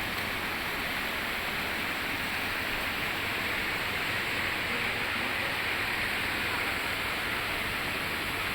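Steady rushing of fast-flowing water at the head of a waterfall: an even, unbroken roar of white water.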